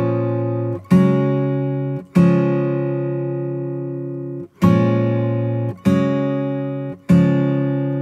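Background music: an acoustic guitar strumming slow chords, each chord left to ring and fade for one to two seconds before the next.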